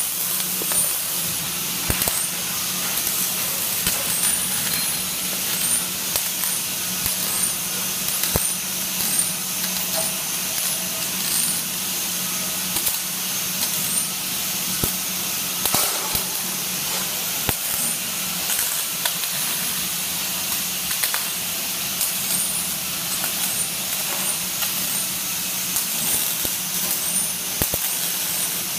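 Robotic welding arc hissing and crackling steadily, with scattered sharp clicks and a steady low hum underneath.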